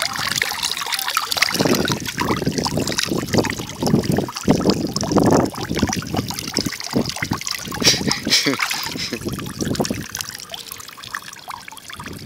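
Water trickling in thin streams out of holes in a plastic bag holding live fish and splashing into the water below, in irregular surges.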